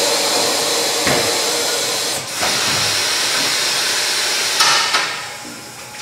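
Air hissing steadily out of a pickup truck tire through its rubber valve stem with the valve core removed, deflating the tire. The hiss dips briefly about two seconds in and fades out over the last second or so.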